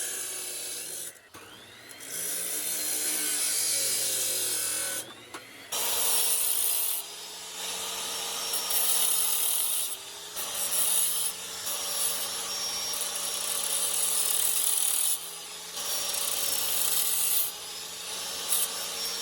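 Electric power tool cutting and grinding steel tabs. The motor pitch wavers and dips as it bites, and the sound breaks off abruptly several times.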